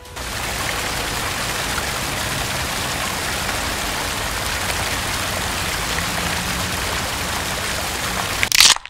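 Small waterfall splashing into a shallow stream: a steady rush of falling water. A short, louder burst of noise comes near the end.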